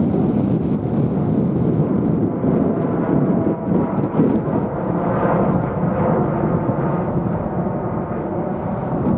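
Boeing 787 airliner's jet engines at climb thrust just after takeoff: a loud, steady roar passing overhead, with a faint steady whine appearing near the end.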